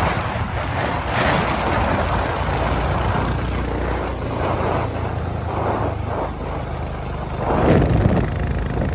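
Motorcycle engine running while riding, with wind buffeting the microphone in gusts.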